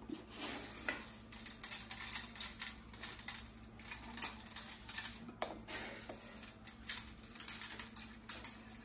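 Coarse salt sprinkled by hand over a leg of lamb on a wire rack in a metal roasting pan: a scatter of quick, irregular ticks as the grains land. A faint steady hum runs underneath.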